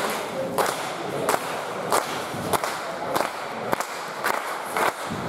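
Small crowd clapping in unison in a steady rhythm, about three claps every two seconds.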